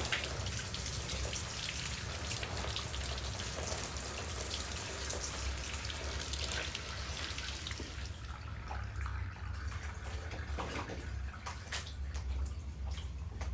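Shower running, water spattering on a body and the shower floor. The spray is dense at first and thins to scattered splashes after about eight seconds, over a low steady rumble.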